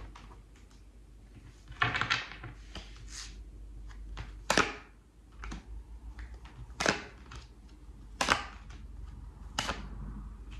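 A tarot deck being shuffled and handled by hand: a series of sharp card snaps, about every one and a half to two seconds.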